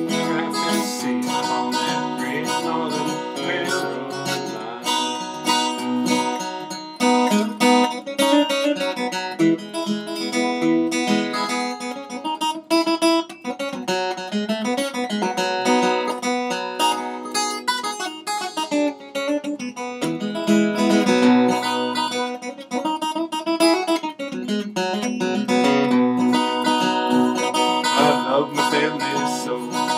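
Acoustic guitar playing an instrumental break in a bluegrass song, quick picked notes over strummed chords, with no singing.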